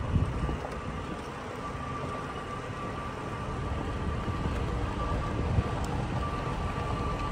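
Toyota Tacoma driving down a dirt trail, picked up from outside the truck: a steady low rumble of tyres on the dirt and air moving past, with a bump just after the start and another about five and a half seconds in.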